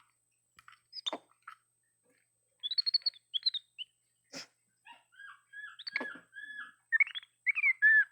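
Capuchin monkey calling with a run of short, high chirps that start a couple of seconds in and come closer together toward the end, with a few sharp clicks in between.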